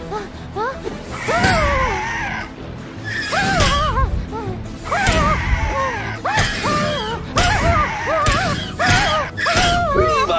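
Animated-cartoon soundtrack: background music with short wordless vocal exclamations from the characters, rising and falling in pitch, repeated about every second or two, with several sharp hits in between.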